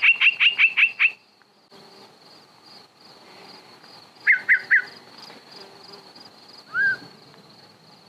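Yellow-breasted chat singing in separate, varied phrases: a quick run of about seven descending whistled notes at the start, three quick notes about four seconds later, and a single rising whistle near the end. A faint steady high-pitched insect trill runs underneath.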